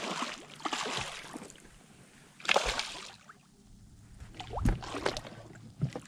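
A hooked snook thrashing and splashing at the surface right beside the boat, in several separate bursts, the loudest about two and a half seconds in, with a dull knock about four and a half seconds in.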